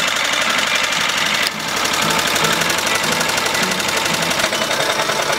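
Small air-cooled engine of a 1942 wartime generator set running steadily, firing in a rapid, even knock through its exhaust pipe, running well.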